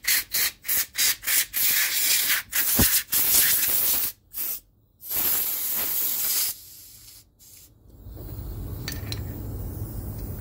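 Compressed-air blow gun hissing in a quick run of short blasts and then one longer blast, blowing cleaning fluid out of carburetor parts fresh from the ultrasonic cleaner.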